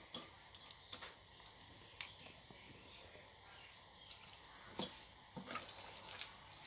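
A few faint, short clicks and taps over a low steady hiss, the loudest about five seconds in.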